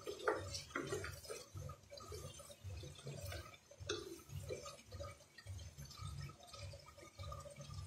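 Wooden spatula stirring chopped papaya and chicken in a nonstick frying pan, with wet, sticky sounds and light clicks of the spatula against the pan. A low pulsing runs underneath at about two beats a second.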